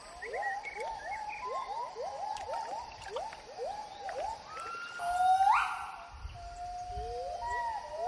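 Gibbons calling: a quick series of short hooting notes, about three a second, then from about five seconds in, louder long whoops that climb steeply in pitch.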